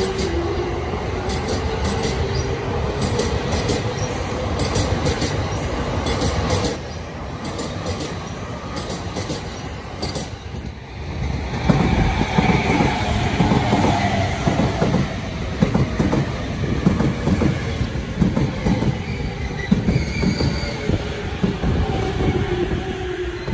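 Yellow-striped Sobu Line local electric train moving along the platform. For the first six seconds or so a motor whine rises slowly in pitch, typical of a train gathering speed. After that the wheels clatter in quick knocks over the rail joints, with a faint squeal over them from about twelve seconds in.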